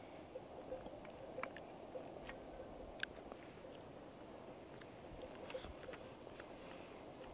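Faint scattered clicks and small handling noises as a piece of cooked mutton on the bone is picked apart by hand, over a low steady outdoor background hiss.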